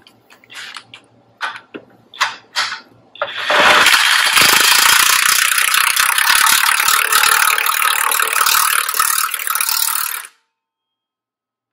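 A few light clicks and knocks, then a DeWalt 20V cordless impact wrench hammers steadily for about seven seconds, driving the tracked mower's track-tensioner bolt in against its spring, and stops suddenly.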